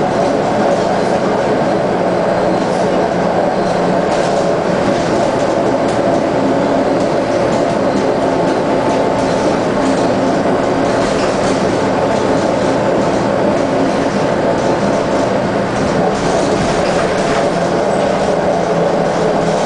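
Scania L94UB bus's DC9 five-cylinder diesel engine running steadily at cruising speed, with road and tyre noise, heard from inside the passenger cabin.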